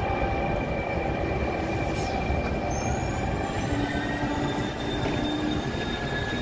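Train rolling slowly through the station, a steady rumble with several thin, high metallic squeals from the running gear that fade in and out.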